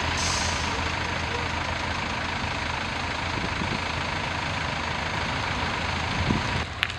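Vehicle engines idling: a steady low hum that drops away with a cut near the end.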